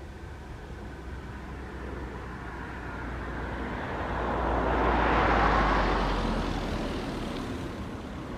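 A vehicle passing by. Its noise swells to a peak about five seconds in and then fades, over a steady low rumble.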